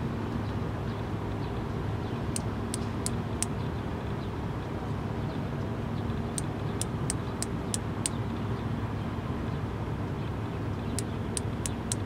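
Male Platypedia putnami cicada wing-clicking, its mating call: three groups of sharp, dry, high-pitched clicks, about three a second, four in the first group, six in the second and a further run near the end. A steady low rumble runs underneath.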